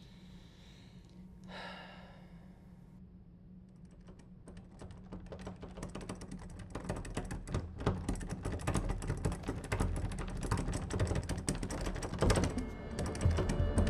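A soft breath about a second and a half in, then a rapid clatter of keyboard typing that starts about four seconds in and grows denser and louder, over a low steady hum.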